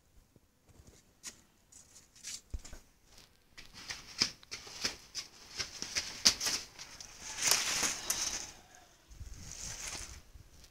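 Black plastic sheet rustling and flapping as it is pulled about and waved: a run of crisp crackles and swishes that grows busier through the middle of the stretch and thins out near the end.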